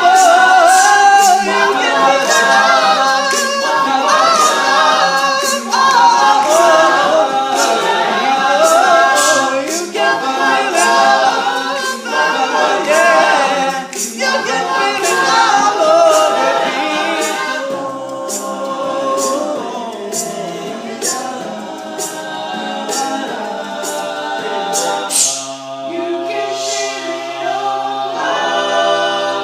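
All-male a cappella group singing without words, voices imitating instrumental lines over a steady beat of vocal-percussion clicks. From about two-thirds of the way in they move to long held chords.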